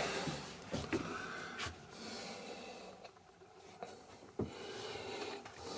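Quiet small-room tone with faint breathing close to the microphone and a few light knocks.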